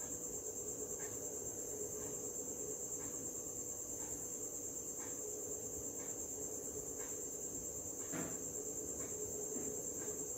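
A steady high-pitched trill with a fainter low hum under it, and soft faint ticks about once a second.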